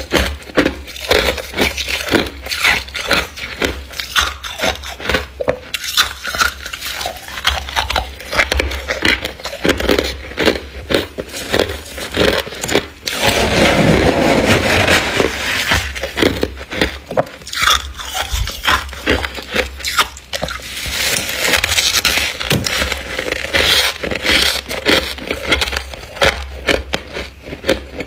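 Thick frost and ice build-up in a freezer being broken off and scraped, a rapid string of sharp crunches and cracks. A longer run of continuous scraping comes about halfway through and again a few seconds later.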